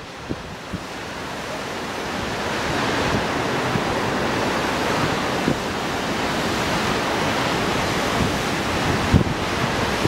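Sea surf breaking and washing over a rocky shore: a dense rush of white water that swells over the first few seconds and then holds steady. Wind buffets the microphone in low thumps at the start and again near the end.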